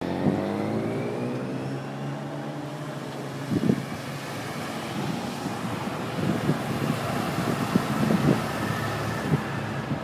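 Engines of a slow motorcade of police motorcycles and cars; one engine note fades over the first three seconds. Wind gusts on the microphone several times.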